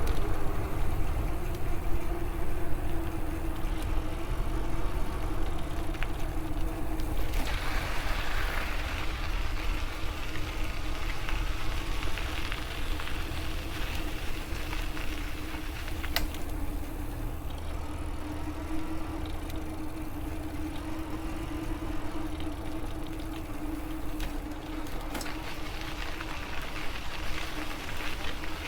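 Riding noise from an electric bike at speed: tyres rolling on the trail, wind rumbling on the microphone, and a steady hum that runs throughout, with a brighter hiss of rolling noise for several seconds in the middle.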